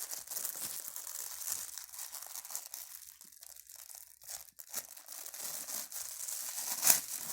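Toy packaging being torn open and crinkled by hand, a continuous rustle with small snaps and one loud sharp snap near the end.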